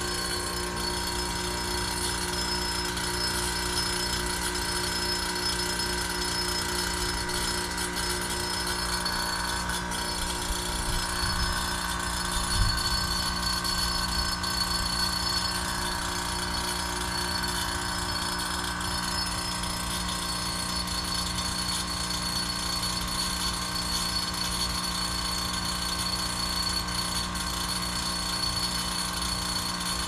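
2012 Goodman heat pump outdoor unit running in defrost mode: a steady compressor hum with a faint high whine that grows a little stronger partway through, and one brief knock about twelve seconds in.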